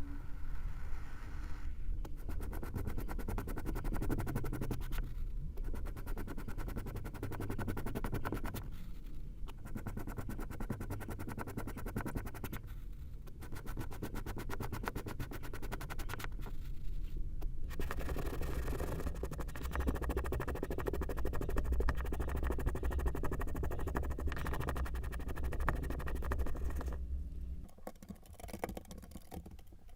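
Kinetic sand being worked and scraped: dense, grainy scratching and crackling in a run of short takes, each a few seconds long, separated by brief breaks.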